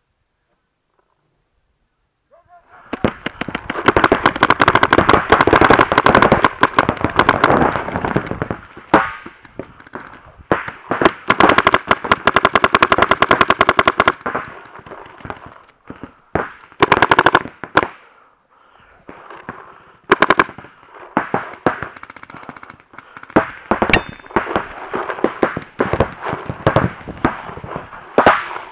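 Paintball markers firing rapidly in long strings of shots, starting about three seconds in, then breaking into shorter bursts.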